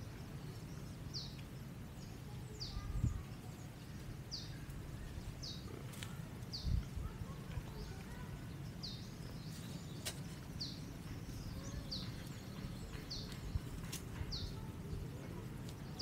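A bird repeating a short, high, downward-slurred call, about ten times at a steady pace, over a steady low rumble of wind, with a couple of low thumps.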